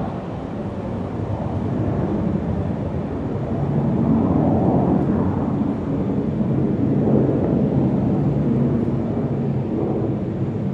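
Large-airport ambience: a steady low rumble of aircraft noise that swells twice, about four seconds in and again near seven seconds.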